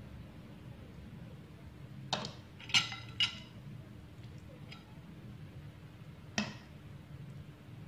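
A metal spoon clinking against a ceramic bowl four times. Three clinks come close together a couple of seconds in and one more comes later, over a low steady hum.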